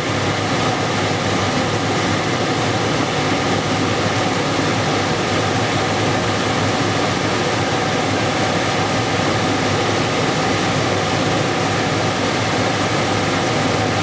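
Trane XE80 gas furnace's blower running, a steady rush of air with a faint constant hum. The burner is not lit.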